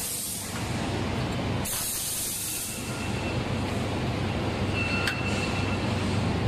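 Steady low machinery rumble and hum of a factory floor, with a stretch of high hiss about two seconds in and a short click about five seconds in.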